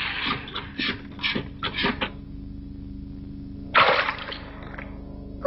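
Cartoon sound effect of a hand pump being worked: a quick series of about six short puffing strokes in the first two seconds. About four seconds in comes a louder, short rushing splash that quickly dies away.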